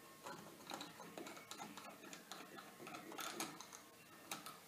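Faint, irregular little clicks and scrapes of fingers unscrewing the small retaining nut from a wall dimmer's shaft.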